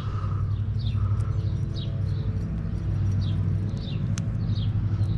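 A steady low mechanical hum, with a bird giving short falling chirps over it about every half second.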